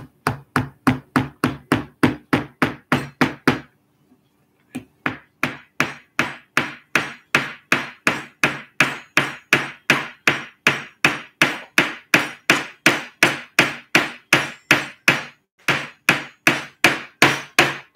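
Claw hammer tapping a tiny nail into a wooden model-airplane part to fasten on a wing: a steady run of strikes, about three to four a second, with a break of about a second near four seconds in.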